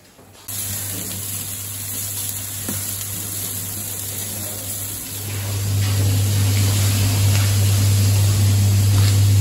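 Steady hissing noise with a low hum underneath, starting suddenly about half a second in and growing louder a little after halfway.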